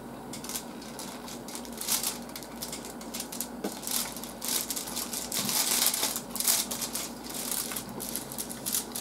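Irregular crisp crackles and crunches from a large deep-fried breaded fry, chewed and broken apart with chopsticks on aluminium foil.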